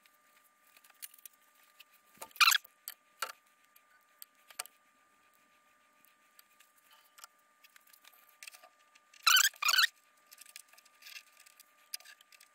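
Small parts being handled by hand during a model-jet fuel-system fit-out: scattered light clicks and taps, and short rustling scrapes, one about two and a half seconds in and two close together about three-quarters of the way through. A faint steady high hum sits underneath.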